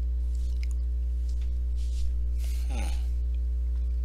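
Steady low electrical hum with a few even overtones, with faint clicks and a brief breathy noise with a falling tone about two and a half seconds in.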